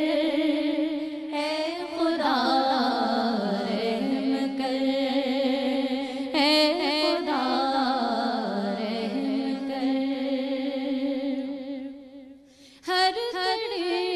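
A woman singing a naat, an Urdu devotional song, in long ornamented phrases that waver and glide in pitch over a steady background drone. Near the end the singing fades almost away for a moment, then comes back at full strength.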